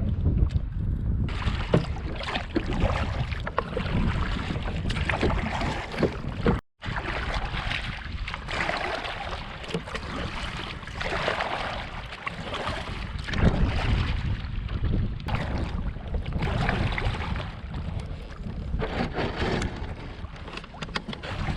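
Strong gusty wind buffeting the microphone, with water splashing around a fishing kayak. The sound drops out for a moment about seven seconds in.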